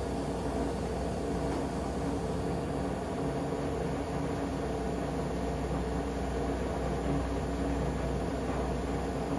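Steady low rumble and hum of a moving vehicle.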